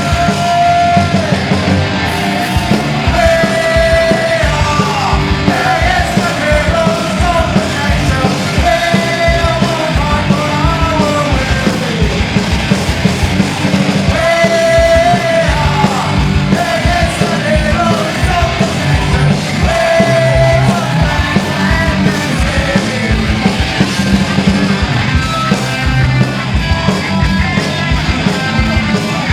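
Punk band playing live, with fast, steady drumming under a shouted lead vocal.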